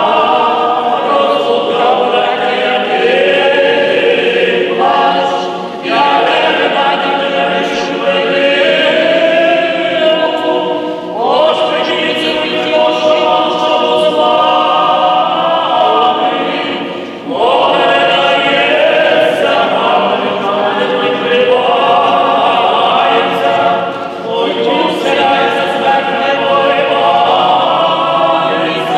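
Choir singing a funeral chant a cappella, in long sustained phrases with brief pauses between them every five to six seconds.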